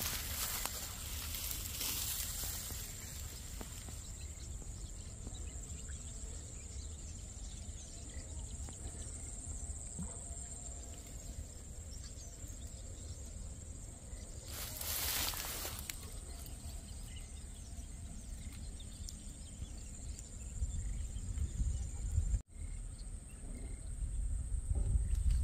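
Insects shrilling in one steady, high, continuous drone, over a low rumble that grows louder near the end. A brief rustle comes about halfway.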